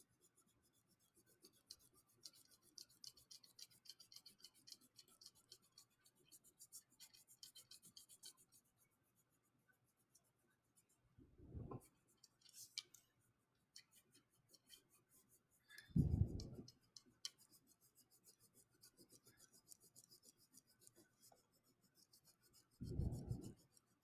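Wax crayon colouring on a paper worksheet: quick, fine up-and-down scratching strokes that pause about nine seconds in and resume more faintly, with a few soft low thumps in between.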